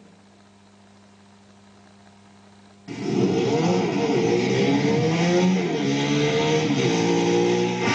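A faint, low, steady hum for about three seconds, then a motorcycle engine suddenly starts revving loudly, its pitch rising and falling over and over, played through an old tube TV's speaker.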